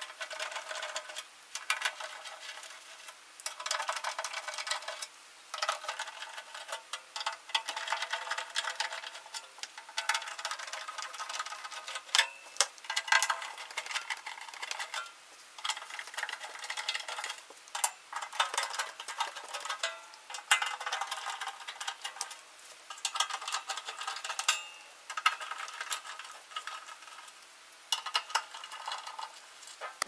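A screwdriver backing screws out of a welder's sheet-metal case: repeated bursts of metallic scraping and clicking, each a second or two long, with short pauses between.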